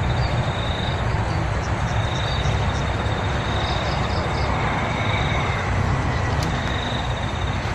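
Steady outdoor background noise: a continuous low rumble under a hiss, with a thin, high buzzing trill that comes and goes.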